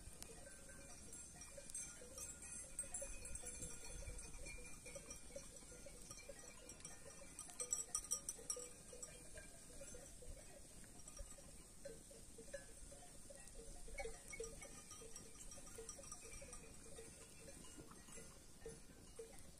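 Faint bells on grazing sheep clanking irregularly. A few sharper clinks come about halfway through.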